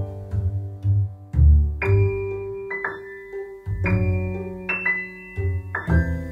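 Background music: keyboard notes over a low bass line, with new chords struck every second or two.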